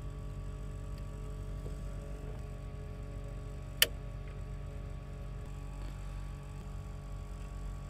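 A steady hum made of several fixed tones, with one sharp click a little before the middle as a hex key is worked at a 3D printer's extruder head.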